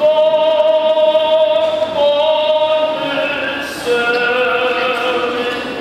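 Mixed choir of men and women singing long held chords, coming in loudly at the start and moving to new chords a few times.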